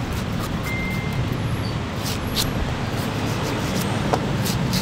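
Steady rumble of road traffic passing a street stall, with a few faint light clicks and taps over it.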